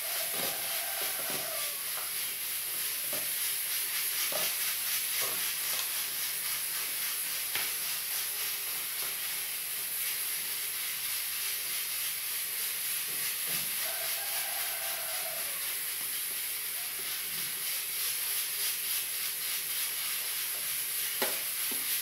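Metal spoon scraping and knocking as it scoops thick, freshly blended soap paste out of a plastic blender jar into plastic tubs, with a couple of brief squeaks, over a steady high hiss.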